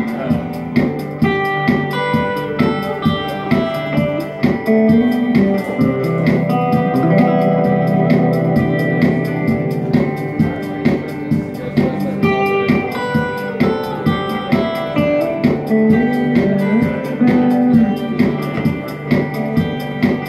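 Live instrumental music: an electric guitar played through a small combo amp, with held melody notes over a steady beat of about one and a half strokes a second.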